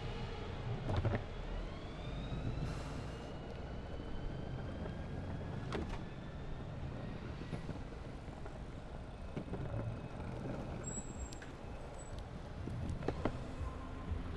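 Longboard wheels rolling over the asphalt of a cycle lane, with street traffic passing alongside. There are a few sharp knocks from bumps in the surface, and a whine rises in pitch over a few seconds near the start.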